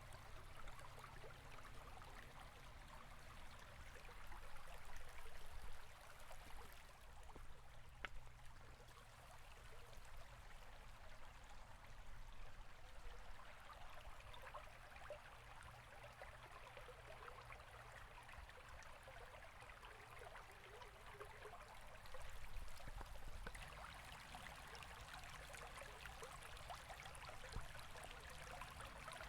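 River water flowing steadily: a faint, even rush of running water over a low rumble.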